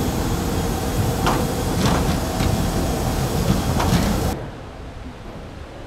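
Loud rushing noise with a faint steady hum and several rattling clicks, as inside a moving vehicle. It cuts off abruptly about four seconds in, leaving a much quieter background.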